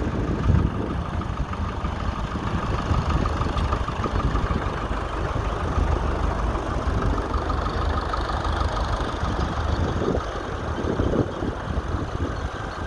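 Massey Ferguson tractor's diesel engine running steadily.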